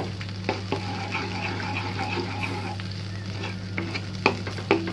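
Thin cornflour-thickened sauce bubbling and sizzling in a pan as it is brought to the boil, stirred with a spatula that knocks and scrapes against the pan a few times. A steady low hum runs underneath.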